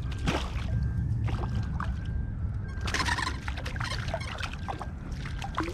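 Bluefish splashing at the water's surface beside a kayak as it is handled to be unhooked, with short irregular splashes and a louder burst about three seconds in, over a steady low wind rumble on the microphone.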